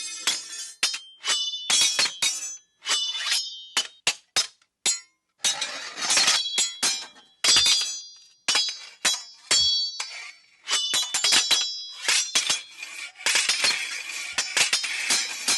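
Metal sword blades clashing in a rapid, irregular series of ringing strikes, with a few longer scraping stretches of blade on blade.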